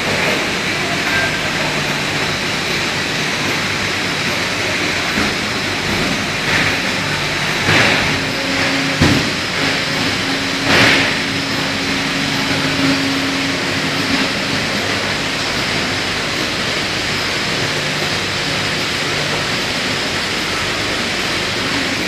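Steady machinery noise of an industrial continuous microwave bacon-cooking line, with a few short knocks around the middle and a steady hum for several seconds in the middle.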